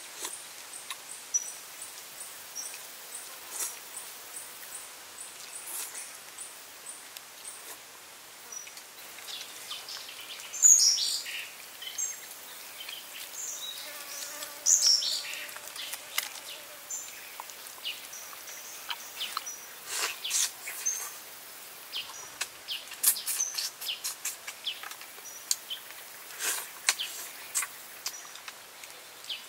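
Forest birds chirping and calling over a steady background of insects, the loudest being two high calls that fall in pitch, about ten and fifteen seconds in. In the second half there is a scatter of short, sharp clicks and smacks of chewing.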